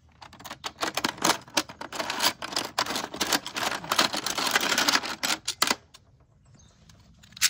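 Dried scallop shells clattering and clicking against one another and the plastic bin as a hand rummages through them. The rattling stops about six seconds in, with a short clatter again at the very end.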